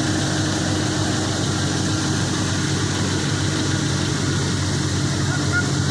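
Tractor engine running at a steady speed, powering a 3000-litre sprayer, with a steady hiss over the low engine note.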